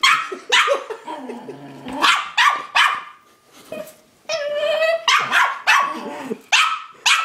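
Small dog barking repeatedly in short, sharp barks, in clusters of two or three, with one longer, drawn-out bark a little past the middle.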